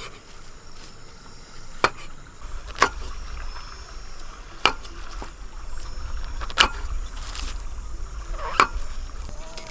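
A series of five sharp knocks, one to two seconds apart, over a steady low rumble.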